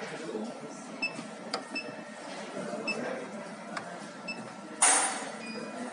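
Several short high electronic beeps from a soldering robot's teach pendant as its buttons are pressed to jog the soldering iron toward the starting point, with a few light clicks. About five seconds in there is a brief loud hiss.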